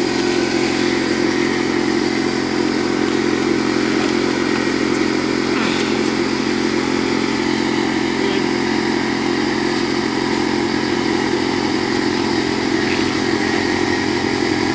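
A small engine running steadily at one constant speed: an even, unbroken drone.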